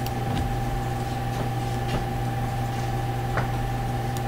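Steady low electrical hum with a fainter higher tone held over it, and a few faint clicks, as from a computer mouse.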